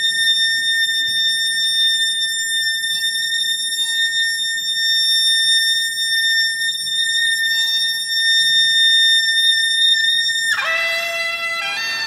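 A suona, the Chinese double-reed shawm, holds one long, piercing high note for about ten seconds. About ten and a half seconds in it breaks into quicker, lower-pitched notes.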